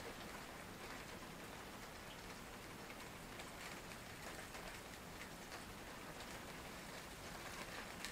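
Steady heavy rain falling: an even hiss scattered with many small drop ticks.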